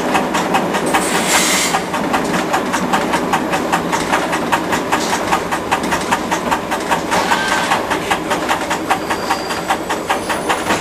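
Train wheels running slowly over the rails and points, with a rapid, even clicking and the engine running underneath. A short hiss comes about a second in.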